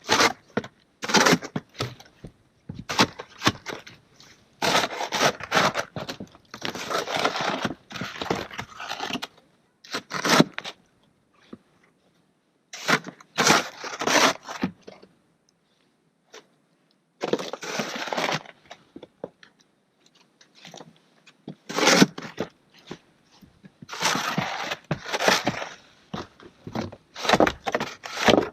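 Small snow shovel scraping and crunching through snow in repeated, irregular strokes, each lasting half a second to two seconds, with short pauses between.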